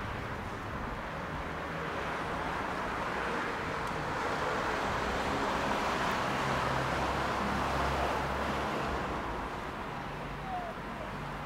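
City street traffic: a steady wash of passing cars that swells in the middle as a vehicle with a low engine rumble goes by, the rumble dropping away about nine seconds in.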